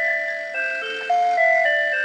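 Mr. Christmas Peppermint Teacup's built-in electronic music playing a melody in clear, chime-like single notes, each held a fraction of a second.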